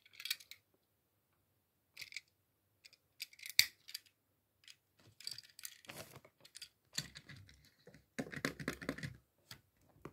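Scattered clicks and taps of a small die-cast Tomica toy car, a Toyota Voxy, being turned over in the fingers and set down on a table. A denser stretch of rustling and scraping comes in the second half.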